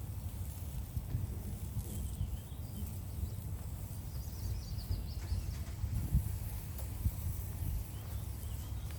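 Outdoor background: a steady low rumble with faint bird chirps about two seconds in and again about four to five seconds in.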